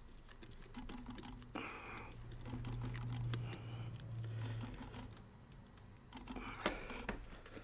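Screwdriver tightening the carburettor clamp screw on a Yamaha BWS/Zuma 50cc two-stroke scooter: small metallic clicks and scrapes of the tool on the screw and clamp, with a low hum for a few seconds in the middle.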